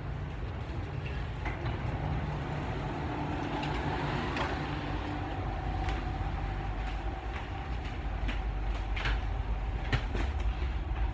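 Dubai Metro train standing at the platform with its doors open: a steady low hum from the train, a faint steady tone joining about four seconds in, and scattered light clicks and taps.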